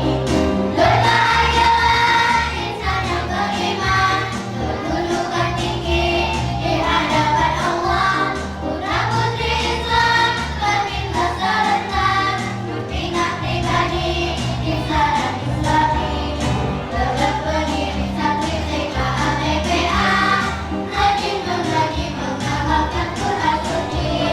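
Children's choir singing an Islamic devotional song (sholawat) over musical accompaniment with a steady beat.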